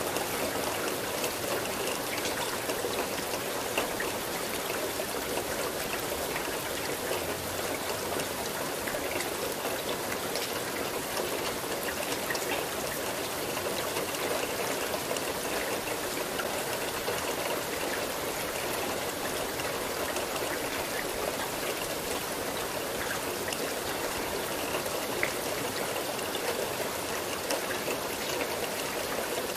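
Steady rain, an even hiss of falling water with scattered small drop ticks.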